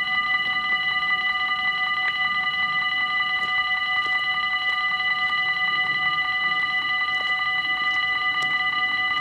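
Dutch level-crossing warning bells ringing continuously in a rapid, even strike: the crossing's alarm that a train is approaching.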